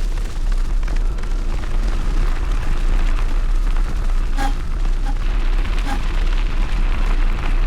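Steady rumble of wind buffeting the microphone, mixed with the bike rolling over the trail behind a two-dog team, with a brief click about four and a half seconds in.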